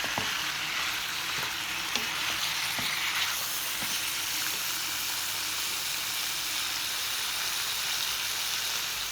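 Food sizzling steadily as it fries in a hot pan, with a few light clicks from a stirring utensil.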